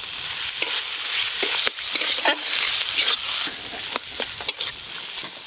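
Chopped tomatoes and spice paste sizzling in hot oil in a metal wok, stirred with a metal spatula that scrapes and clicks against the pan again and again.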